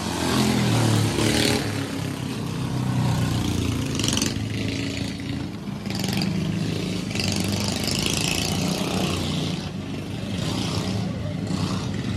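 Small-engine dirt-track race karts running laps, their engines rising and falling in pitch as they pass close by, the loudest pass about a second in.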